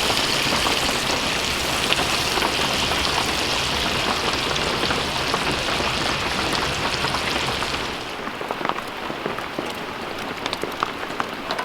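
Steady rain falling, a dense hiss with individual drops ticking. About eight seconds in the sound changes abruptly to a lighter patter of separate drops.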